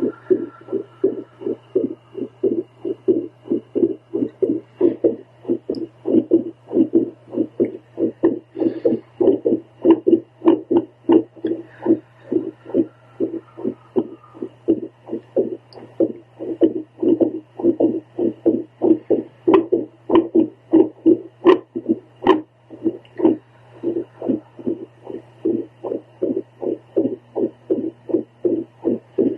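A woman's heartbeat picked up by a handheld home Doppler: a quick train of pulsing whooshes, uneven in rhythm, over a steady low hum. The uploader describes her heart as going into a very irregular rhythm.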